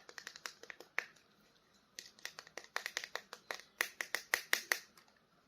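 Sharp plastic clicks and taps from a toy action figure being handled: a few scattered clicks, then from about two seconds in a fast run of about four to five clicks a second that stops shortly before the end.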